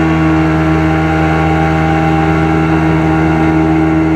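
Mercury outboard motor running at a steady, high speed with the boat on plane.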